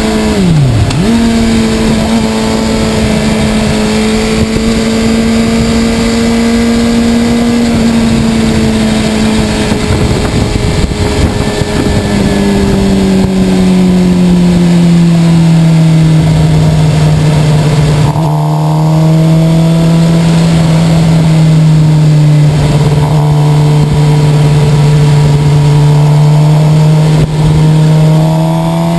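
Suzuki sport bike's engine running at highway cruising speed under rushing wind, one steady engine note throughout. About a second in the note dips sharply and comes straight back, and about twelve seconds in it settles to a lower steady pitch, rising slightly again near the end.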